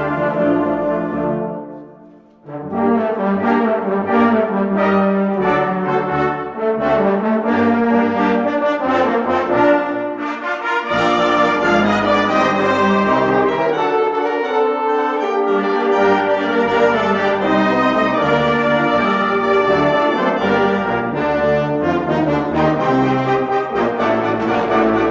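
Brass ensemble, with trombones and horns, playing a slow tune in held chords. The music drops away briefly about two seconds in, then comes back in and carries on.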